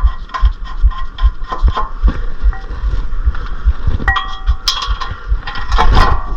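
Sharp metallic clinks and knocks of hand tools and brake parts being handled, over background music with a steady beat.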